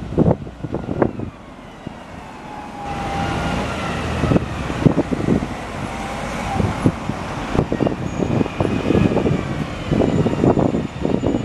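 Diesel single-deck buses driving round a roundabout and passing close by, their engines running with a whine that rises and falls. Gusts of wind buffet the microphone near the start and again near the end.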